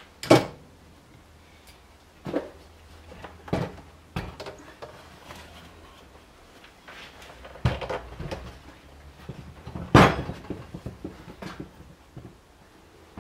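Knocks and clatter of a reassembled Elite Turbo Muin trainer unit and a cordless drill being set down and shifted about on a wooden workbench: a string of separate thumps with lighter rattles between, the loudest near the start and about ten seconds in.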